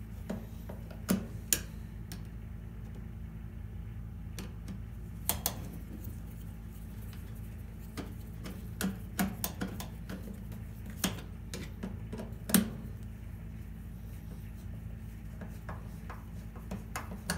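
Irregular sharp metallic clicks and taps of a screwdriver working the two screws of a range cord's strain-relief clamp against the steel bracket as the clamp is tightened, over a steady low hum.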